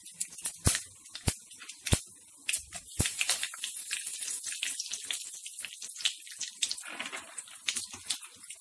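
Hot coconut oil in an iron wok crackling with mustard seeds and urad dal: a few sharp pops at first. About three seconds in, curry leaves go into the oil and set off a denser, steady spluttering sizzle.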